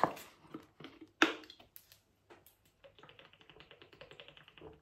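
A plastic water bottle's screw cap cracks open with a sharp click, followed by a few smaller clicks and crackles of the plastic. Then, as the bottle is tipped up for drinking, there is a fast, even run of small ticks, about ten a second.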